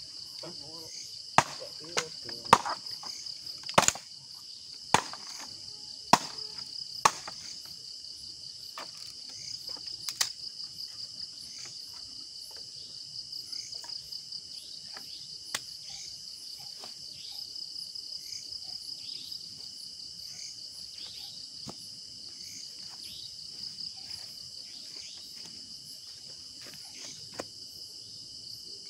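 Crickets chirring in a steady, high, unbroken trill, with a string of sharp wooden snaps and knocks in the first ten seconds or so as sticks are handled at a small campfire.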